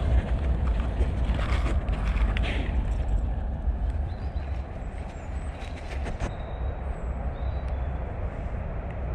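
A dog chewing a dried cow ear, with a few crisp crunches in the first three seconds and a pair about six seconds in, over a steady low rumble.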